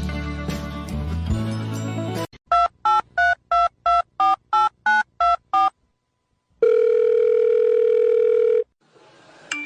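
Music, then telephone keypad tones dialing nine digits in quick succession, about three beeps a second. A steady tone follows for about two seconds.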